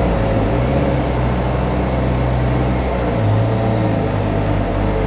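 Kawasaki Ninja ZX-4RR's inline-four engine running at low speed, a steady low hum whose pitch shifts slightly about three seconds in.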